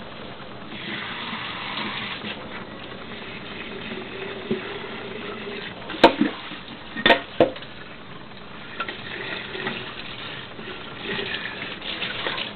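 Water running from a Dishmaster faucet into a sink, surging louder about a second in and again near the end, with a few sharp knocks around the middle.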